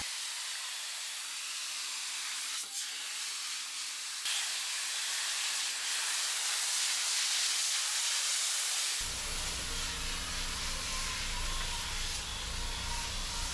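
High-pressure car wash wand spraying onto a car with a steady loud hiss. A low hum joins about nine seconds in.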